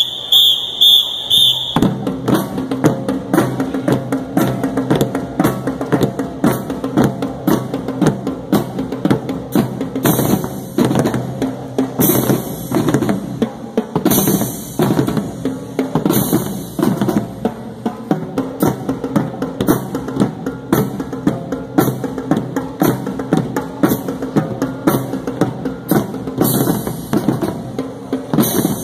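Marching bass drums played with sticks by a small drum line, a driving rhythmic pattern of strokes that starts about two seconds in, after a few short high-pitched blasts.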